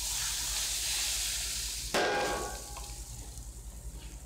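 Smoking-hot oil poured from a ladle over red chili and spices on mashed potato samosa filling, sizzling and hissing. A second, sharper burst of sizzle comes about two seconds in, then dies away.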